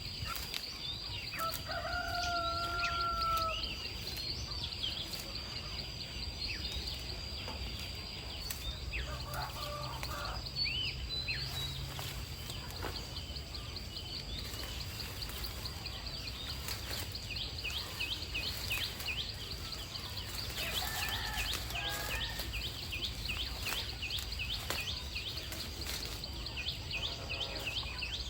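Free-range chickens calling, with a rooster's long crow a couple of seconds in and shorter clucks and calls later, over a steady low rumble and a constant high whine. A rapid run of high chirps goes on through the second half.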